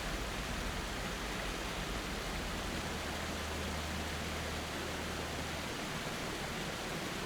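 Steady rushing of a waterfall: an even hiss with a low rumble beneath, unchanging throughout.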